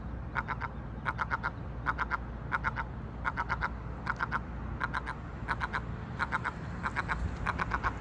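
A gull calling an alarm call: rapid clusters of four or five short, sharp notes, repeated steadily about every two-thirds of a second. These are the calls of a parent gull at an intruder near its chicks.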